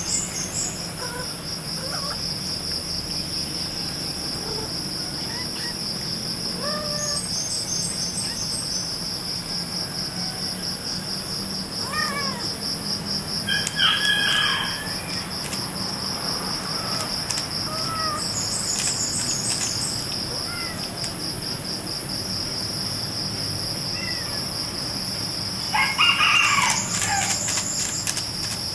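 Mother cat and kittens calling back and forth: short rising-and-falling chirps and mews scattered through, with a louder call about halfway and a louder, longer call near the end. A steady, high, pulsing insect shrill runs underneath.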